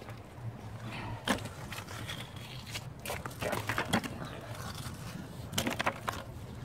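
A small metal scissor-like tool handled in gloved hands: a few scattered sharp clicks and scrapes, with several close together in the second half.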